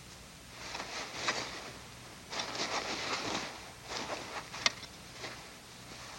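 Ulu knife cutting through sealskin hide: several runs of irregular rasping strokes, with one sharp click a little over four and a half seconds in.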